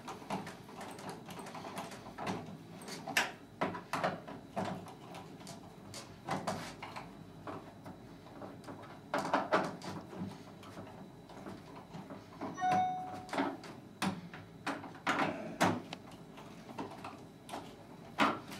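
Screwdriver working the roller adjustment screws in the bottom rail of a sliding patio door's sash, giving irregular clicks and knocks from the tool and sash. A brief squeak comes about two-thirds of the way through.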